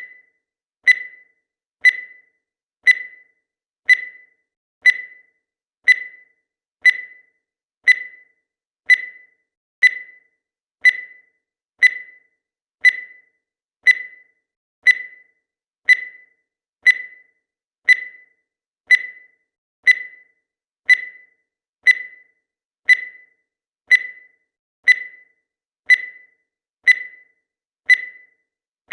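Countdown timer beeping once a second: a short electronic beep that fades away quickly, repeating at an even pace.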